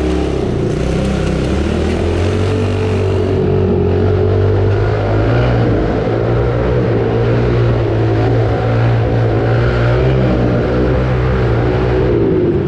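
Small single-cylinder pit bike engine running under throttle as the bike rides around a curved concrete wall, its pitch rising and falling with the throttle.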